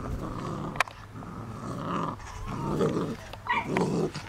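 Doberman puppy growling in several short, rough bursts while tugging on a toy, with one sharp click about a second in.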